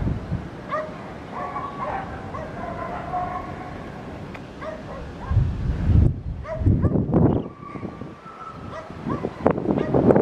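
Dogs barking and yipping in short repeated calls. Gusts of wind buffet the microphone in the second half.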